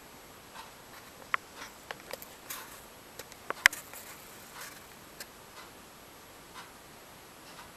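Quiet room with a clock ticking softly about once a second. A few sharp clicks and taps come between about one and four seconds in, the loudest near the middle.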